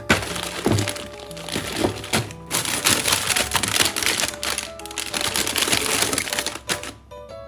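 Background music with a dense crackling, crinkling noise over most of it, breaking off briefly a few times and stopping near the end.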